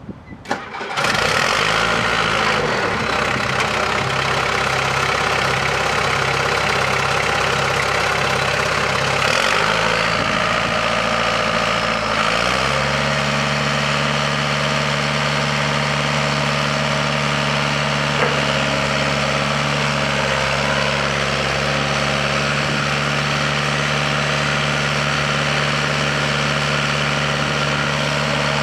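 1991 Dresser TD8G crawler dozer's diesel engine starting up about a second in, then running steadily at idle. About twelve seconds in its speed rises a little and then holds steady.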